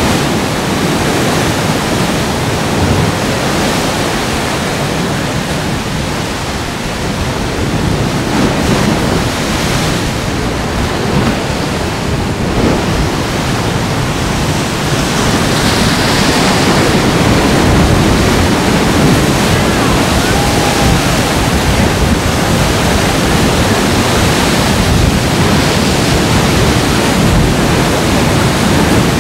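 Ocean surf surging through a rock sea arch and its blowholes, water crashing and pouring back off the ledges in a continuous loud rush that swells somewhat in the second half.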